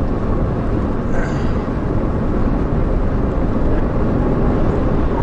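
Steady rush of wind, tyre and engine noise from a police patrol car driving at over 90 mph.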